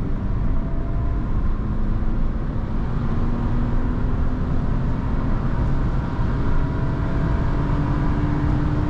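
Mercedes 260E W124's 2.6-litre straight-six petrol engine pulling hard through a motorway acceleration run, heard from inside the cabin, its pitch rising slowly and steadily, over wind and tyre noise.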